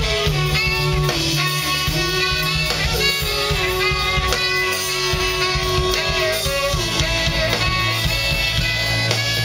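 Live rock band playing, amplified through a festival PA: drum kit, bass guitar and keyboards, with sustained pitched lines over a steady beat.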